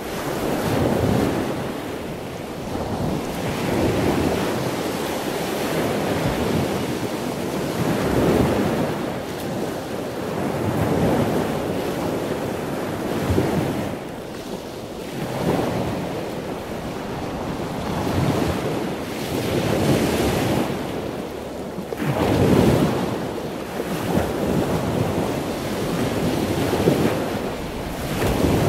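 Wind buffeting the microphone over a choppy open sea, with the rush of waves swelling and fading every two to three seconds.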